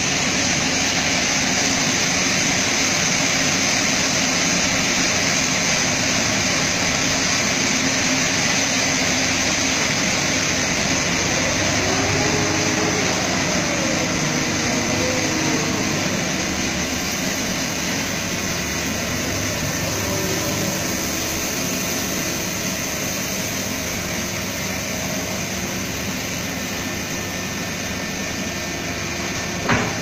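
Steady machinery drone of a quayside crane working a remote-controlled clamshell grab in a ship's bulk cargo hold, with a single sharp knock near the end.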